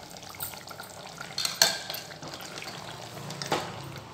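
A plastic spoon stirring thick chicken curry masala in a metal pot as it fries, with a few sharp knocks of the spoon against the pot, the loudest about one and a half seconds in.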